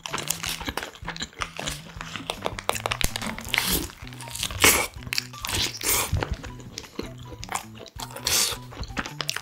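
Close-up bites and chewing of a toasted sandwich, with the paper wrapper crinkling, over soft background music. A big bite comes about four seconds in.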